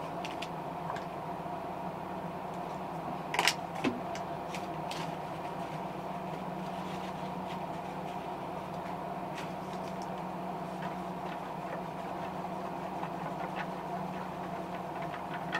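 A small airbrush compressor hums steadily. Over it come light clicks and taps of paint bottles being handled, and a sharper clatter about three and a half seconds in.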